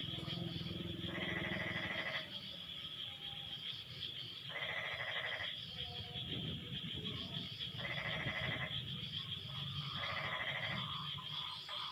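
A frog chorus after rain. One frog gives a buzzy, bleat-like call under a second long four times, every two to three seconds, over a steady high-pitched hum of other callers and a low background chorus.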